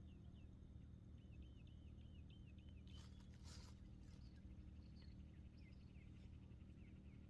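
Faint birdsong: a quick run of chirps, then a longer buzzy trill, with two short rustles about three seconds in over a low steady hum.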